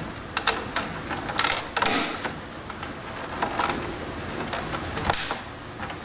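Clear plastic sign cover being pressed into a Liebherr countertop fridge's plastic sign frame: scattered plastic clicks and snaps as its tabs seat in their holes, the louder snaps about two seconds in and about five seconds in.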